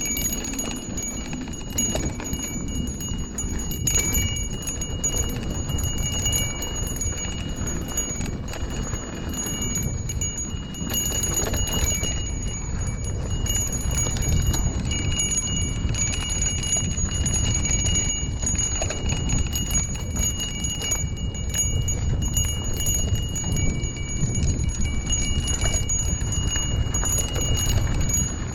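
A bell ringing and rattling continuously, its high tones held steady over a low rumble.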